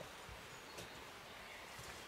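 Faint forest ambience: a steady low hiss with a couple of faint bird chirps and a few soft ticks.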